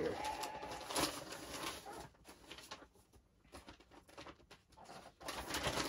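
Packaging being opened by hand: rustling and crinkling, busy for about the first two seconds, then only a few faint clicks and rustles, and picking up again near the end.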